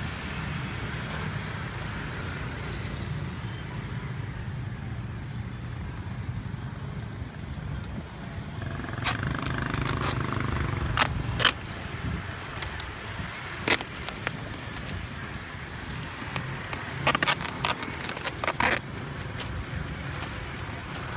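Plastic snack bags crinkling and adhesive tape being pulled and torn in several short, sharp bursts, clustered near the middle and toward the end, over a steady low outdoor rumble.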